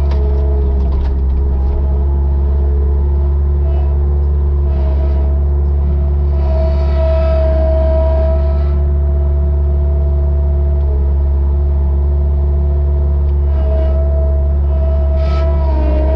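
Engine of a compact loader running steadily under the operator, with a low hum and a steady whine above it. The whine gets louder for a couple of seconds near the middle as the attachment is tilted up on its hydraulics.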